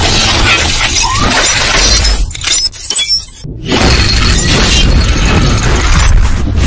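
Intro sound effects over music: metallic clattering and shattering as gun parts snap together, a brief drop about three and a half seconds in, then a dense spell of loud gunfire blasts and crackle.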